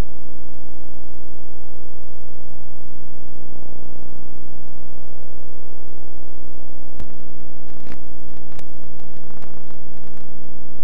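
Loud, steady electrical hum with hiss from an old VHS tape transfer, carrying no game sound. A few sharp clicks and crackles come about seven seconds in.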